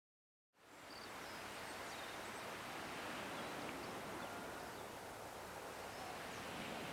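Steady wash of sea waves fading in about half a second in, with a few faint, short high bird chirps over it.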